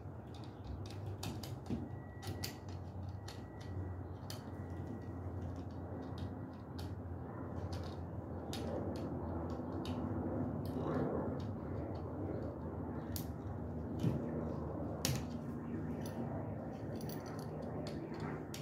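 Screwdriver turning the terminal screws of a duplex receptacle to tighten the wires down: irregular small metallic clicks and scrapes, a sharper click about fifteen seconds in, over a steady low hum.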